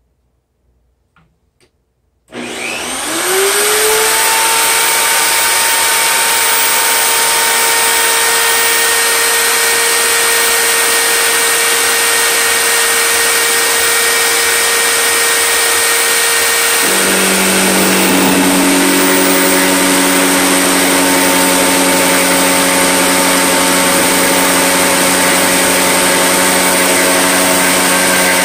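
A table-mounted router switches on about two seconds in, its motor winding up to a steady, loud high whine. Around seventeen seconds in the pitch drops, with the bit under load as the wood is fed into the cut.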